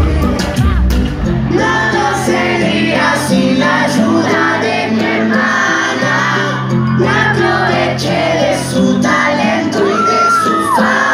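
Live pop song played loud over a concert PA, with a lead vocal over a steady beat and bass, and occasional shouts from the audience.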